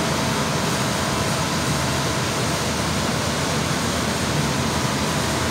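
The blower of a 20 HP floor-standing air conditioner running, a steady, even rush of air with a faint hum.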